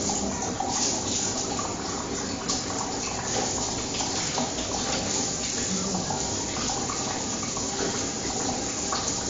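Water running steadily in a bathroom, from a tap or shower, an even rushing hiss.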